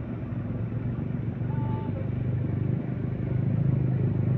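Heavy diesel engine of the excavator-loading machinery running steadily with a low pulsing throb, growing gradually louder toward the end.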